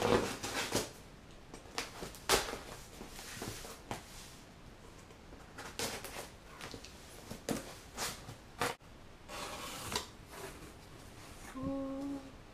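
A cardboard shipping box being opened: a small box cutter slitting and scraping along the packing tape, and the cardboard flaps knocking and being pulled open. The sound is a scatter of sharp clicks, scrapes and short rasps.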